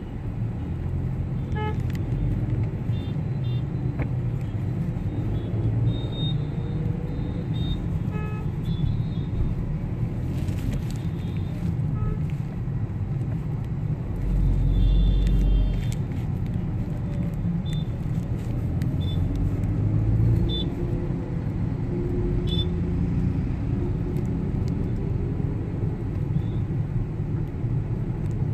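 Suzuki hatchback driving along, heard from inside the cabin: a steady low rumble of engine and tyres that swells heavier for a second or two about halfway through. A few short high toots sound here and there.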